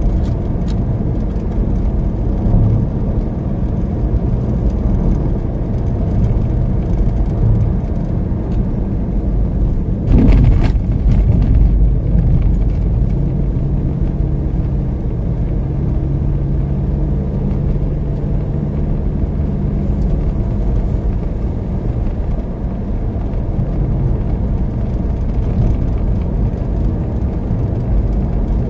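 Car driving steadily along a road, heard from inside the cabin: a steady low rumble of engine and tyre noise, with a brief louder rush of noise about ten seconds in.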